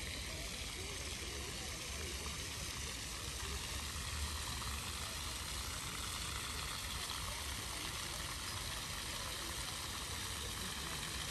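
Steady outdoor city ambience: a continuous hiss over a low rumble, with no single event standing out.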